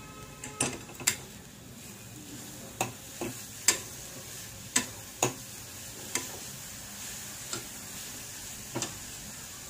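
A spoon stirring grated raw papaya in a non-stick kadai, knocking and scraping against the pan about ten times at uneven intervals, over a faint steady sizzle of the mix frying in ghee.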